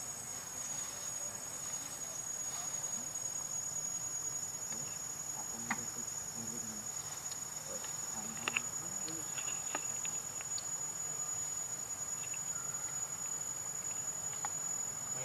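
Steady high-pitched drone of insects in forest, with a few faint scattered ticks.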